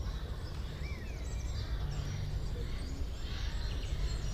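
Forest ambience: many small birds chirping and calling in quick short notes, over a steady low rumble.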